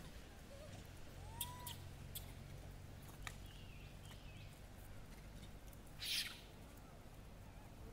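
Faint ambience around a troop of feeding macaques: a few short calls and chirps, some sharp clicks, and a brief rustling hiss about six seconds in.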